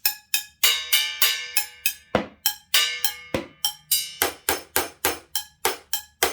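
A toddler banging a drum with sticks: a quick, uneven run of sharp hits, about three a second, many of them ringing briefly.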